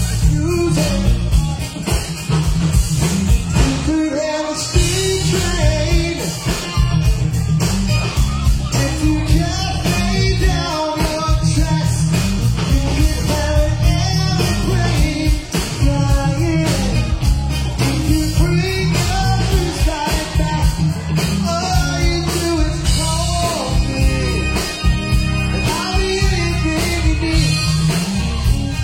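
Music: a band playing a rock song, a lead voice singing over guitar and a steady beat.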